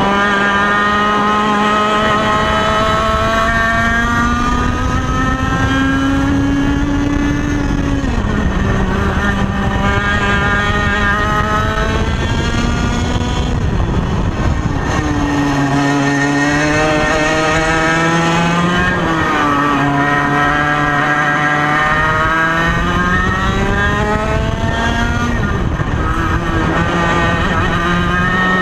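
Ital Sistem SL21 100cc single-cylinder two-stroke kart engine, running through an old TKM exhaust, revving at high speed on track. Its pitch climbs steadily along each straight and drops sharply when the driver lifts off for corners, several times over.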